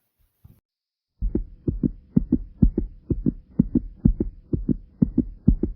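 Fast human heartbeat, a steady lub-dub at roughly two beats a second with a faint steady hum underneath. Faint beats give way to a brief pause, and about a second in the beats come in much louder.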